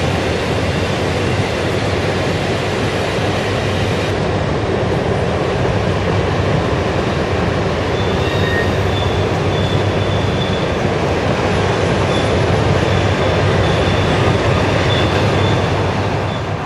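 HO-scale model freight cars rolling past close by: a steady rumble of metal wheels on the track, with a faint, broken high squeal from about eight seconds in.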